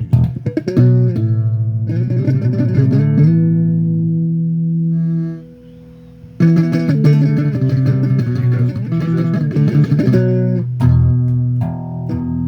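Electric bass guitar played solo, ringing notes and chord shapes, stopping for about a second midway before the playing picks up again.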